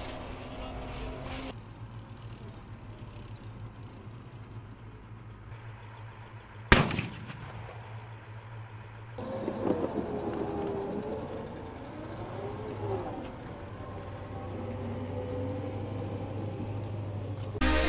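Bradley fighting vehicle sounds: a steady low engine drone with one sharp, loud shot about seven seconds in. From about nine seconds a tracked vehicle runs louder, with a wavering whine.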